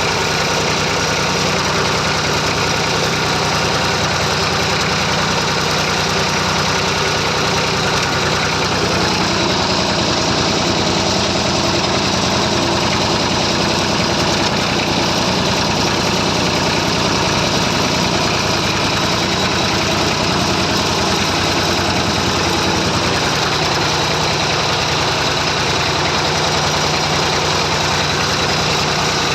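Massey Ferguson 35 tractor engine running steadily at a constant speed.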